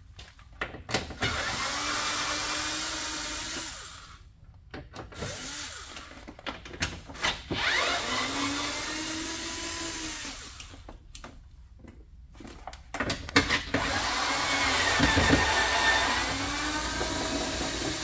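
Handheld power driver with a 10 mm socket running in three bursts of a few seconds each, its motor whine rising and falling in pitch, as it backs out the window regulator bolts.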